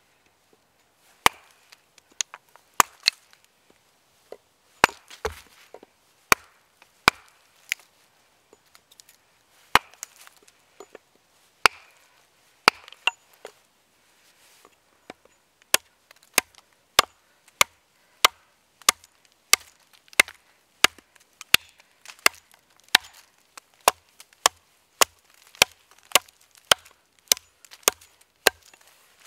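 Hatchet chopping into a log: a long series of sharp wooden chops, spaced out and irregular at first, then a steady run of about three blows every two seconds through the second half.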